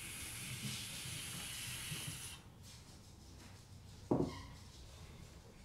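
E-cigarette drawn on hard: a steady hiss of air and vapour pulled through the atomizer, which cuts off about two and a half seconds in, then a short breath sound about four seconds in as the thick cloud is exhaled.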